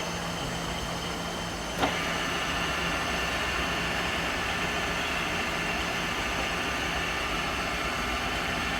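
Four-head tapping drill machine running with a steady electric motor hum. A sharp click comes about two seconds in, after which the hum is a little louder.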